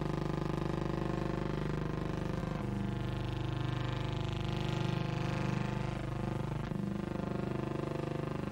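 Background music of sustained chords, each held for a few seconds, changing about two and a half seconds in and again near seven seconds.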